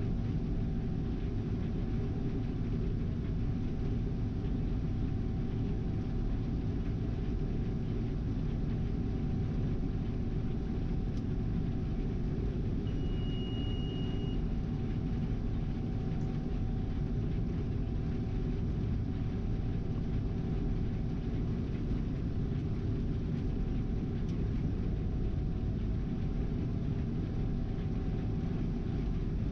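Gleaner R72 combine running steadily while harvesting soybeans, heard from inside the cab: a continuous low drone with a faint steady whine. A short high beep sounds about halfway through.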